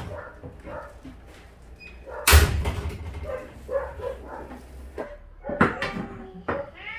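A heavy bang with a low thud about two seconds in, then two sharp knocks near the end, with small scattered clatter between. A cat starts meowing right at the end.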